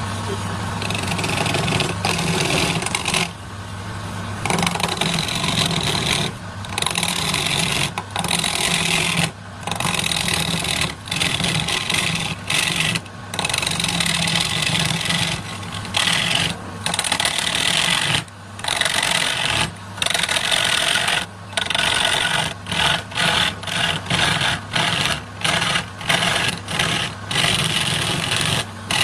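Electric power tool running with a steady hum while working wood, a rasping noise over the motor that breaks off in short gaps, more and more often toward the end.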